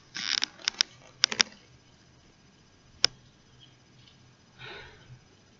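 Footsteps and shuffling on a wooden stage: a few soft rustles and sharp clicks in the first second and a half, one sharp click about three seconds in, and a brief soft scuff near the end.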